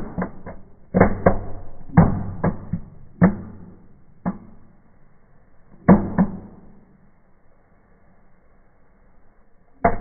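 Small fireplace fireworks going off in a fire: a run of sharp pops and cracks that thins out, two more about six seconds in, then a few seconds of only faint fire noise before one last crack near the end.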